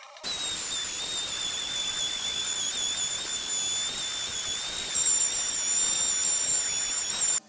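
Random orbital sander, with a dust hose attached, running on an epoxy-filled barnwood tabletop: a steady hiss with a high, wavering whine. It starts abruptly, gets louder about five seconds in, and cuts off suddenly near the end.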